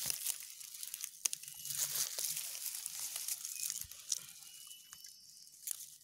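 Dry grass stalks rustling and crackling close to the microphone, with scattered small snaps.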